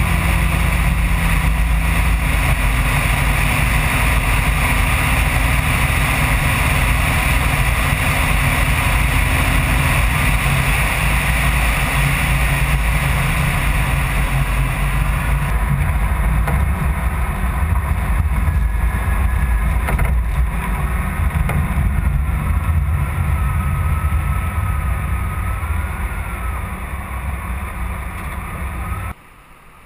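The 1994 Chevrolet Camaro's rebuilt 3.4-litre V6 running steadily as the car drives slowly, heard from a camera mounted on the outside of the car. It eases off over the last few seconds, then cuts off suddenly just before the end.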